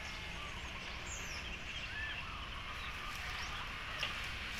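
Outdoor ambience: a steady hiss over a low rumble, with a few short bird chirps and whistles, the clearest a high falling whistle about a second in.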